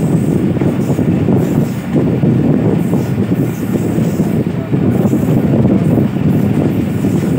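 Loud, steady rumble of a moving passenger train, its coach wheels running on the rails, heard from an open window of the coach.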